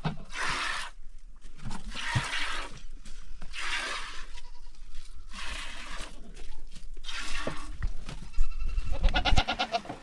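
Goat being milked by hand: short hissing squirts of milk come every second or two. A goat bleats about nine seconds in.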